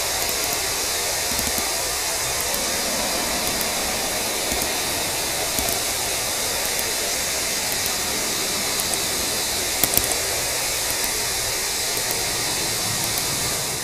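Steady, loud hissing noise like rushing air or static, with no tune or pitch, a few faint clicks, and a brief louder crackle about ten seconds in.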